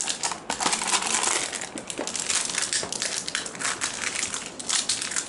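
Clear plastic film crinkling and crackling as it is handled and folded around a cardboard phone box, a dense, continuous run of rustles.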